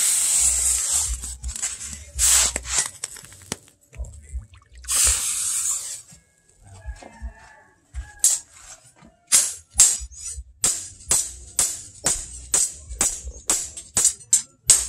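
Water splashing over a billhook blade in a water trough. About eight seconds in, a hand hammer starts striking the steel blade on a small anvil, with sharp ringing blows at about two to three a second.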